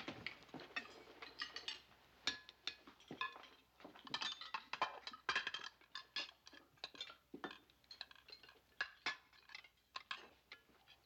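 Cutlery and china dishes clinking and clattering at a dinner table, many small, irregular clinks in quick succession, some with a brief ring.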